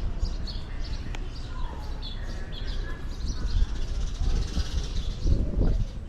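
Small birds chirping, many short high chirps in quick succession, over a low, uneven rumble.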